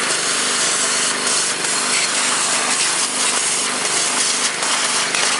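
Vacuum cleaner running steadily with a low hum, its hose nozzle sucking dust and old fuel and carbon particles off the pistons in an engine block's cylinder bores. A few brief crackles stand out over the steady noise.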